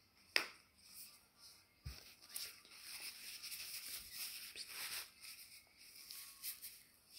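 A child biting and chewing a juicy slice of melon close to the microphone: a sharp mouth click about half a second in, then soft wet chewing and sucking sounds.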